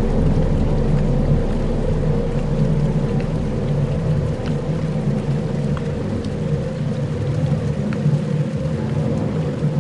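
Dark ambient soundscape: a low, steady rumbling drone made of sustained tones, with a few faint ticks scattered through it.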